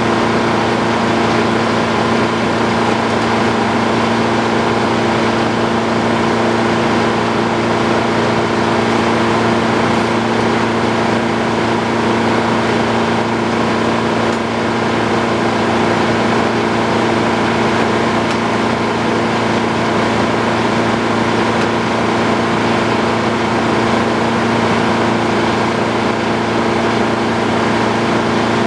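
Antique circular sawmill's engine and spinning blade running at a steady speed: a constant drone with several held tones that never change in pitch or level.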